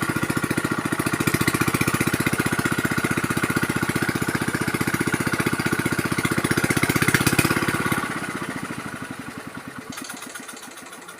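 A small engine running with a fast, even chug, steady for about eight seconds, then dropping off and fading away.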